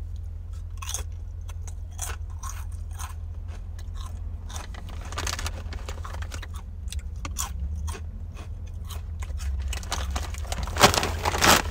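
Close-up chewing of crunchy kettle-cooked ghost pepper potato chips: a long run of sharp crunches and crackles, with a few louder crackles near the end.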